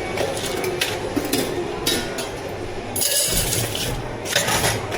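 Clinks and small knocks of cups and utensils being handled while drinks are made, with two short hissing bursts in the last two seconds.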